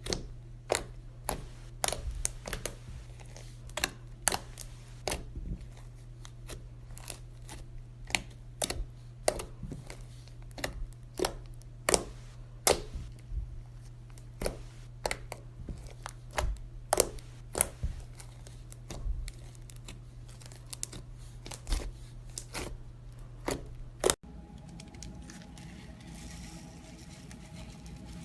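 Slime being squished and poked, played in reverse: a string of sharp clicks and pops, irregular, a few a second, that stops suddenly about 24 seconds in.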